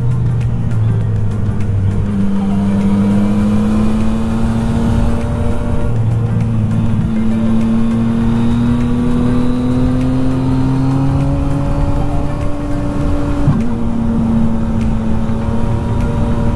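Yamaha MT-09's three-cylinder engine pulling under way, its pitch climbing slowly for several seconds, then dropping abruptly about thirteen seconds in, as at an upshift, and holding steady after; a dense rush of wind noise lies under it.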